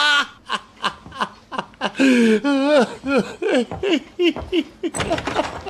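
A man laughing hard in a long run of short cackles, with a wavering, drawn-out laugh about halfway through; the laughter stops near the end.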